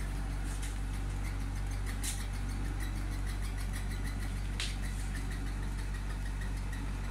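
Steady low electric motor hum, with a faint regular ticking about two or three times a second, and a short hiss twice, about two and four and a half seconds in.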